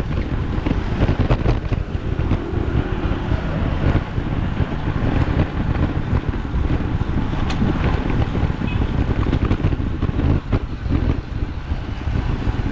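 Wind buffeting the microphone of a camera on a moving bicycle: a steady low rumble with a few scattered clicks.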